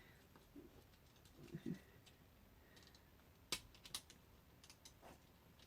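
Mostly quiet, with a few sharp clicks and light taps of small parts being handled, the clearest two about three and a half and four seconds in, and a brief low sound about one and a half seconds in.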